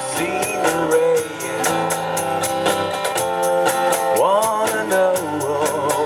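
Live acoustic band music: strummed acoustic guitar and a cajon keeping a steady beat, with a voice singing melody lines over them.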